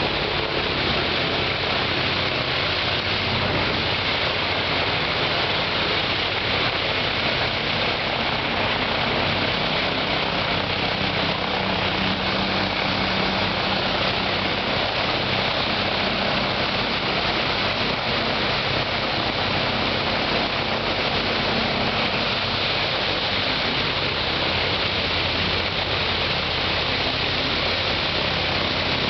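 The Ilyushin Il-14T's right-hand Shvetsov ASh-82T fourteen-cylinder radial engine running steadily on its first run after restoration, propeller turning.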